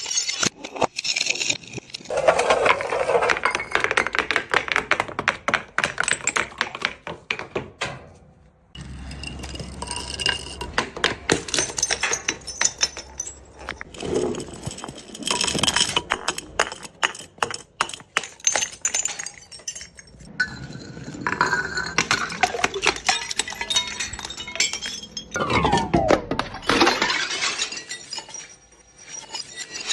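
Glass bottles shattering and being crushed: a dense run of sharp cracks, crunches and tinkling shards, broken into separate takes. Near the end, squeaky tones slide up and down.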